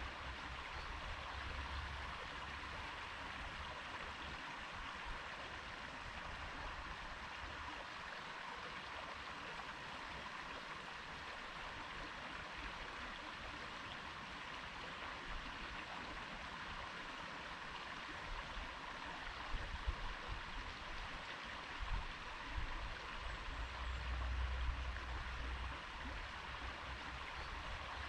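A stream flowing steadily with an even rushing babble, broken by a few low rumbling bumps about two-thirds of the way through.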